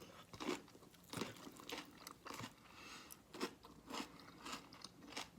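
A person chewing food close to the microphone, with crisp crunches about twice a second at an irregular pace.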